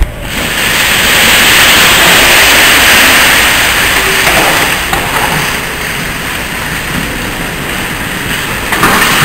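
Loud rushing, rubbing noise of the camera's microphone being handled and covered. It starts suddenly with a click, eases off about halfway through and swells again near the end.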